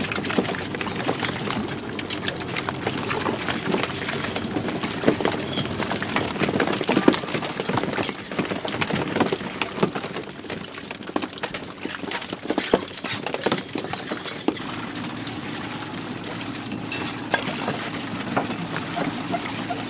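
Net hauling on a small fishing boat: a steady motor hum under many irregular clicks, knocks and clinks as the net and fish come over the net hauler and drop into a crate, with some water splashing.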